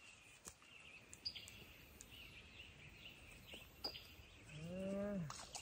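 Faint outdoor swamp ambience with small birds chirping now and then and a few light clicks. Near the end there is a brief low pitched sound lasting under a second.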